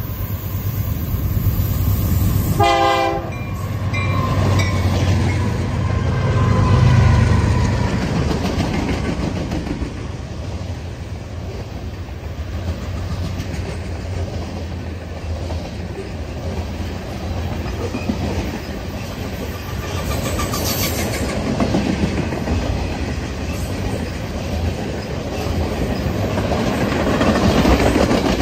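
Norfolk Southern freight train passing close: the diesel locomotives rumble loudly for the first several seconds, with a short horn blast about three seconds in, then the steady clatter of hopper and tank cars rolling over the rail joints.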